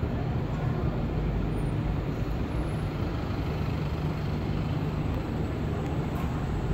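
Steady low rumble of a vehicle engine running, with no distinct events.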